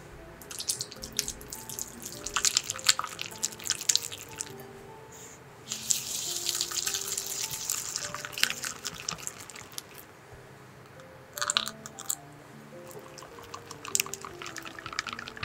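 Wire balloon whisk beating soft cream cheese in a glass bowl: the wires click and scrape against the glass in quick, busy strokes. It comes in four bouts with short pauses between them, over soft background music.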